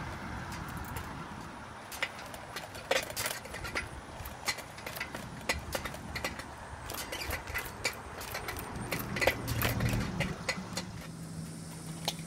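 Bicycle ridden along a concrete sidewalk: a steady tyre rumble with frequent irregular clicks and rattles from the bike. A low steady hum joins about nine seconds in.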